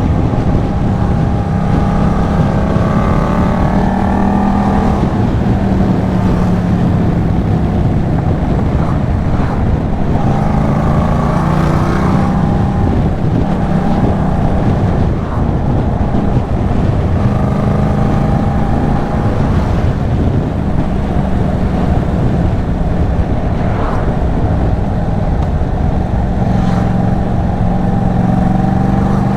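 Yamaha MT-07's 689 cc parallel-twin running through an aftermarket Arashi sport exhaust while riding, with the pitch climbing under acceleration and dropping back several times.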